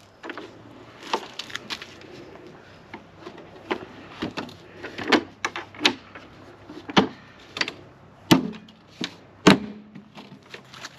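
Irregular knocks and clunks of gear being shifted and stacked into an RV storage compartment, a dozen or so hits with the loudest near the middle and the end.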